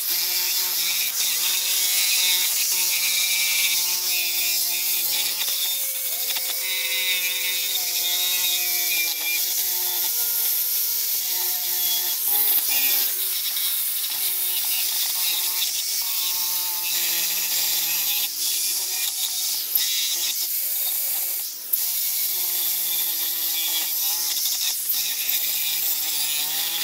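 Electric drill running a wire wheel against the rusty metal table of an old jigsaw, wire-brushing off the rust: a steady motor whine under a harsh scratching hiss.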